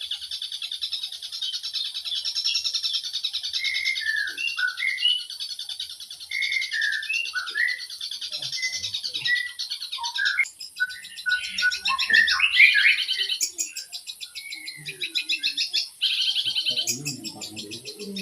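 Long-tailed shrike (cendet) singing a fast, continuous chattering song of rapid trills, broken by short whistled notes that slide up and down in pitch.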